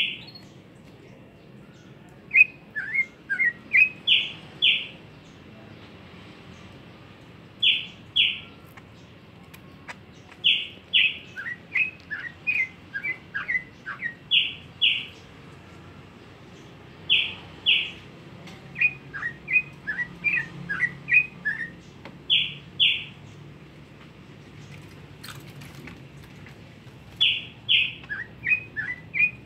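A pet songbird singing in repeated phrases every few seconds. Each phrase is two loud, clear downward-sliding whistles, often followed by a quick run of shorter falling chirps.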